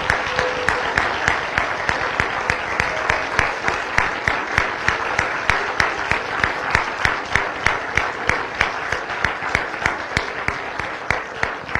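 Audience applauding steadily, with dense clapping and some sharper claps standing out at about four a second. It eases slightly near the end.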